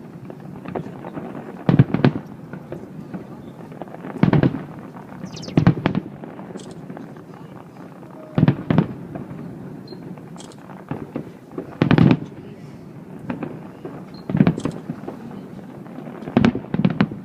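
Aerial fireworks shells bursting at a distance: about seven sharp bangs a couple of seconds apart, some in quick pairs, each trailing off in a short echo, over a steady low rumble.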